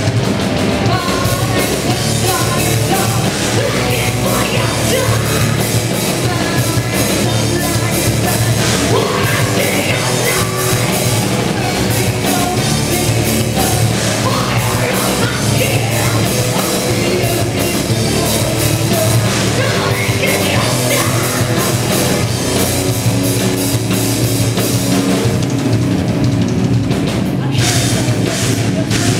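A heavy metal band playing live and loud: distorted electric guitars, bass and drum kit, with the singer's vocals over them.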